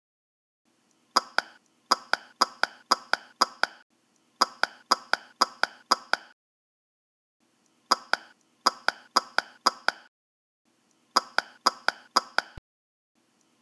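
Footstep sound effect: quick, sharp ticks about four a second in several short runs, broken by moments of complete silence.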